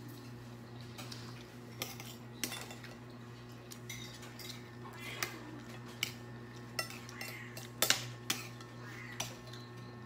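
Metal spoons clinking against glass bowls and plates while eating, in scattered separate clicks, the loudest a little before the end, over a steady low hum.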